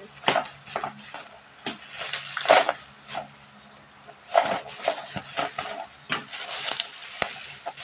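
Scissors snipping through a plastic courier pouch and its clear plastic wrap, the plastic crinkling and rustling in irregular bursts.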